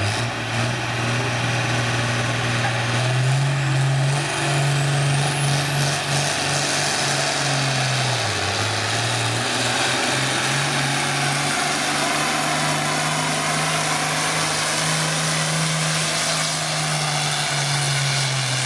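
Diesel engine of a pulling vehicle running hard under load while pulling the sled. It makes a steady loud drone that rises in pitch a few seconds in, dips briefly about eight seconds in, climbs again and drops off near the end. A thin high whine rises over the first several seconds.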